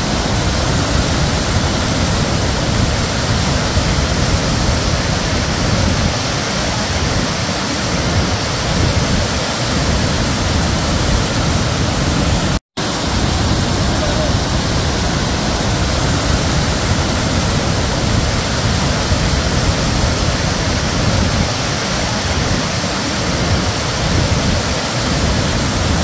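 Nugget Falls, a glacier-meltwater waterfall, rushing loudly and steadily as heavy water pours over rock tiers. The sound cuts out for a split second about halfway through.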